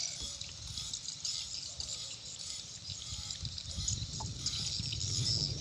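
Water trickling and dripping at a river's edge, over a steady high hiss and a low rumble.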